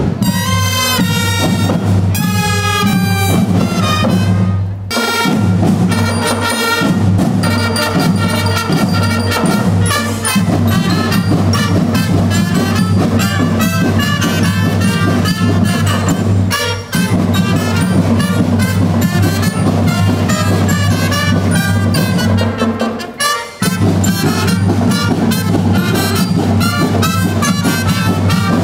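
School marching band playing a tune led by brass.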